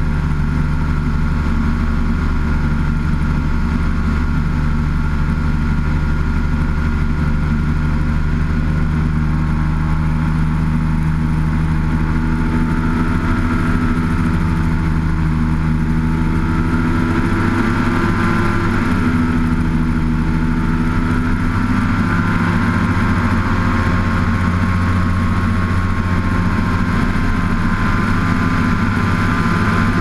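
Engine of a small ski-equipped light aircraft running steadily in low flight. From about halfway through, its note wavers and shifts in pitch.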